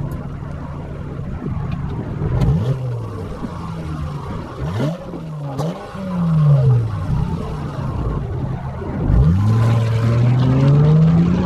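2018 Chrysler 300S's 3.6-litre V6 heard at the exhaust tip, idling and then revved up and down a few times; near the end the revs climb steadily and hold.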